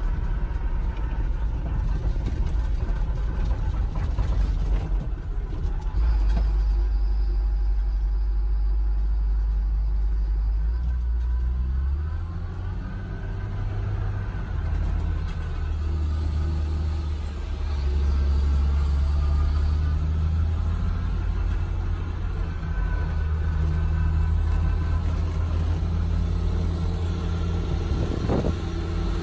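Engine and road noise inside the cab of a military truck driving on a dirt road: a steady low rumble whose pitch rises and falls several times.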